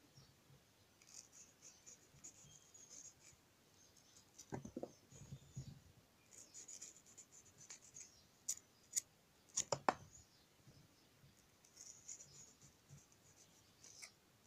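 Small carving knife cutting and scraping through watermelon rind in faint scratchy strokes, with a few sharp clicks a little over halfway through. The knife is scooping out pieces of rind between carved flower petals. A couple of dull knocks come about a third of the way in.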